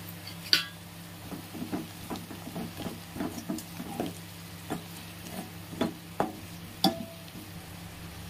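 Metal spoon stirring in a metal cooking pot: a run of short scrapes and knocks against the pot. The sharpest knocks come about half a second in and twice near the end, over a low steady hum.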